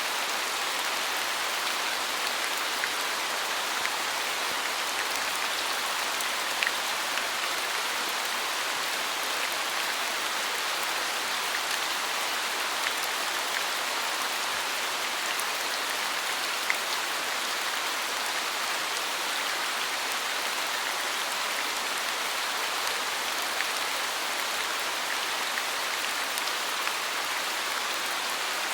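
Steady rain falling, with a few individual drops ticking out now and then.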